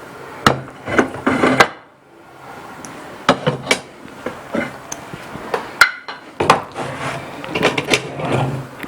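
Kitchen utensils knocking against pans and bowls: a string of sharp, irregular taps and knocks.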